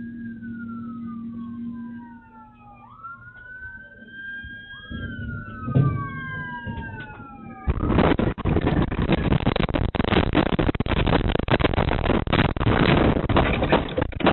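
Police sirens wailing, two or more overlapping tones sweeping up and down, over a steady low engine hum. About eight seconds in, a loud rough rushing noise cuts in abruptly and drowns them out.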